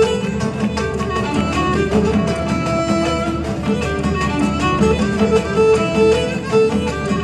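Live Cretan folk dance music: a bowed lead melody on a Cretan lyra over rhythmic plucked lute accompaniment, with a steady, even beat.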